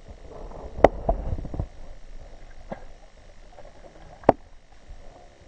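Handling noise on the microphone: low rumbling and rustling, heaviest about a second in, with two sharp clicks about a second in and about four seconds in, and a fainter click between them.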